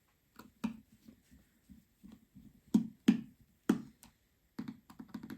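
Irregular small sharp clicks and taps, a dozen or so, of small metal parts being handled and set in place: the iPhone's metal shield plates ('cans') and their screws going back inside the phone.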